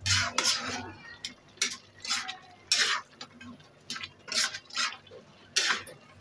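Flat metal spatula scraping across a pan while stirring thick grated carrot and bottle gourd halwa: repeated quick scrapes, about two a second.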